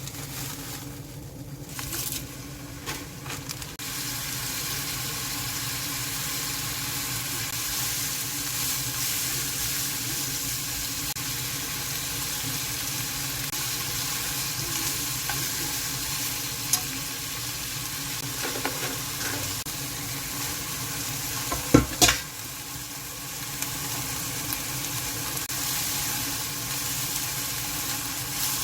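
Food frying in a pan, a steady sizzle, with a few light clicks and one sharp knock late on.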